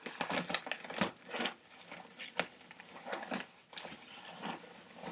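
Plastic bag and packaging rustling and crinkling as hands rummage inside, in irregular crackles.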